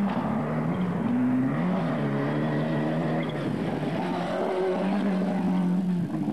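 Rally car engine revving hard on a loose gravel stage. The note climbs and drops again several times as the driver works through the gears, over the hiss of tyres on gravel.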